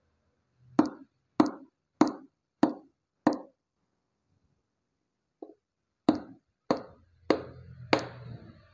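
Hammer blows driving a cylinder liner into an Isuzu Panther 2.5 diesel engine block, struck through a block held on top of the liner. Five even knocks come about 0.6 s apart, then a pause with one light tap, then four more knocks.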